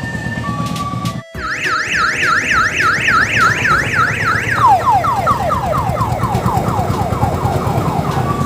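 Electronic multi-tone siren horn, first a fast up-and-down warble and then a string of falling whoops, about three a second. Under it runs the steady chugging of a single-cylinder dompeng diesel engine. About a second in, the sound drops out briefly before the siren starts.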